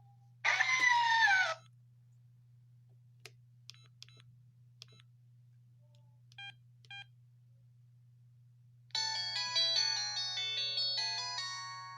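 LG W3000 mobile phone playing its ringtones and alert tones through its small speaker. About half a second in comes a short tone that glides down in pitch; a few faint clicks and two short beeps follow in the middle; near the end a polyphonic ringtone melody of quick stepped notes plays for about three seconds. A steady low hum runs underneath.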